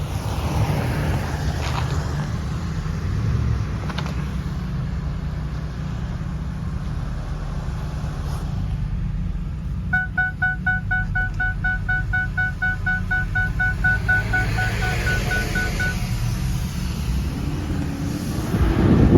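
Steady low rumble of a car driving, heard from inside. Midway through, a rapid electronic chime of about four to five short beeps a second sounds for about six seconds, then stops.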